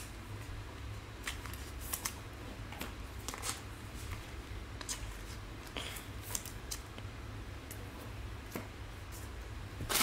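Trading cards and plastic card holders being handled, giving scattered light clicks and rustles over a steady low hum.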